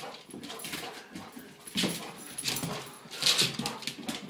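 A pet dog moving about as it chases a light: irregular short scuffing and breathing noises, with louder bursts about two seconds in and again a little after three seconds.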